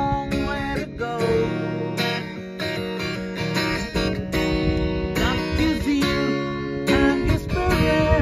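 Acoustic guitar strummed in chords, with a man singing along.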